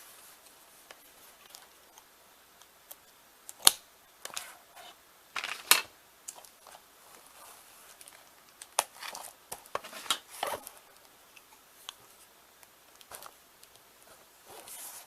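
Scissors snipping and plastic packaging crinkling and tearing as a Blu-ray case is cut open, in scattered sharp clicks and short crackly bursts.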